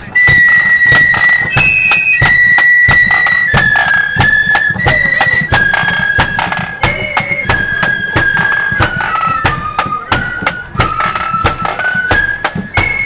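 Marching flute band playing a tune in unison, the flutes carrying a high melody in held notes over a steady beat of bass and side drums.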